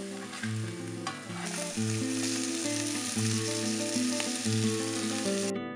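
Bull testicle slices frying in olive oil in a pan, sizzling steadily while a spatula stirs them, under acoustic guitar music. The sizzle cuts off suddenly near the end, leaving only the guitar.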